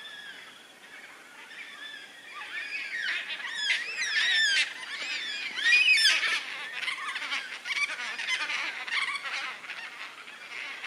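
A flock of black cockatoos calling overhead: many overlapping drawn-out cries that rise and fall in pitch, faint at first and much louder from about three seconds in.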